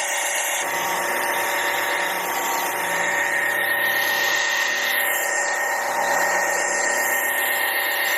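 Kebtek cordless battery-powered pressure washer running steadily: a high motor-and-pump whine over a hiss of water spray.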